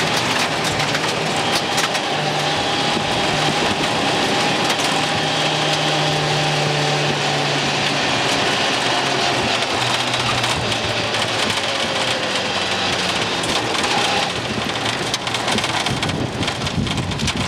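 Rally car's engine running at a steady pitch, heard from inside the cabin, over a constant hiss of tyres on loose gravel. About 14 seconds in, the engine note drops away as the car slows, leaving rougher, uneven gravel and rattle noise.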